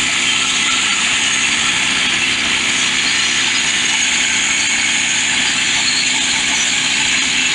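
Woodland Mills portable band sawmill running steadily, its gas engine under load as the band blade slowly feeds through a large pine log.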